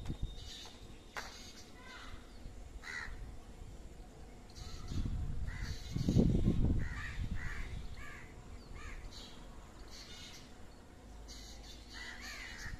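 Crows cawing repeatedly, a string of short harsh calls throughout. A low rumble about six seconds in is the loudest sound.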